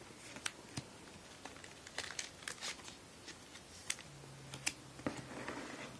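Faint, scattered taps, clicks and rustles of trading cards being handled and slipped into plastic card sleeves. A faint steady low hum joins about four seconds in.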